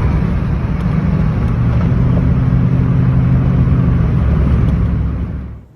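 An engine running steadily: a low, even hum over a rushing noise, cutting off suddenly near the end.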